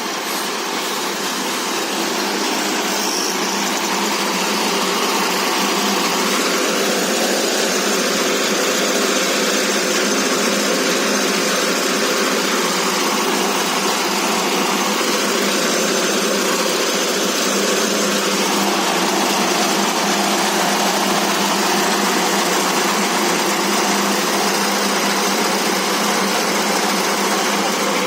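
Feed pellet mill driven by a 22 hp diesel engine, running steadily with an even mechanical din.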